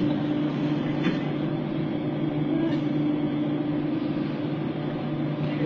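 A steady low mechanical hum, with a faint click or two over it.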